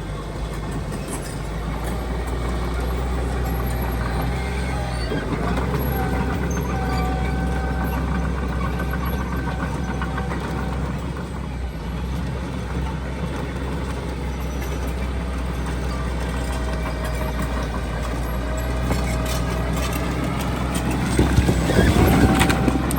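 Diesel engine of heavy earth-moving machinery running steadily, with a low hum and a steady whine. Near the end there is a louder burst of clattering noise.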